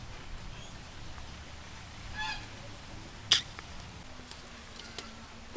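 Metal tongs click once sharply against the wire grill rack while turning skewered squid over charcoal. About two seconds in there is a short bird call in the background.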